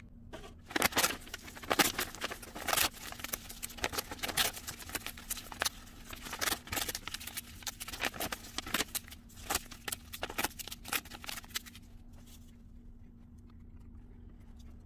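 White paper torn by hand into small pieces for papier-mâché: a long run of quick crackling rips and rustles that stops about twelve seconds in.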